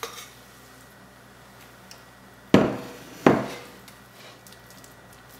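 Two sharp knocks of kitchenware, about two-thirds of a second apart, while a sticky coconut mixture is scraped from a bowl into a glass baking dish with a silicone spatula and spread out; a softer click comes at the start.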